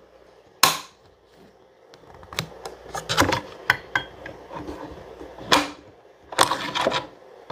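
Metal clicks and scrapes of a Savage Axis bolt-action rifle's bolt being worked and drawn out of the receiver: one sharp click about half a second in, then bunches of clicks and sliding scrapes.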